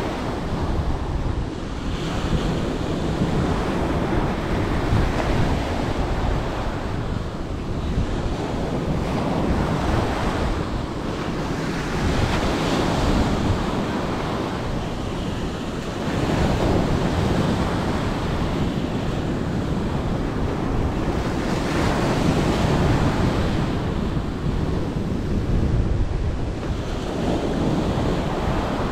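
Rough sea surf breaking on the shore, its noise swelling and easing every several seconds, with wind buffeting the microphone.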